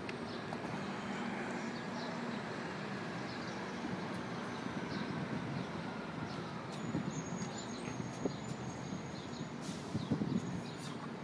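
Steady downtown traffic noise, with a few soft knocks near the end.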